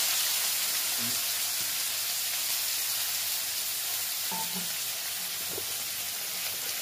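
Chopped onion sizzling in hot oil, a steady frying hiss that eases off slightly as the onion starts to fry.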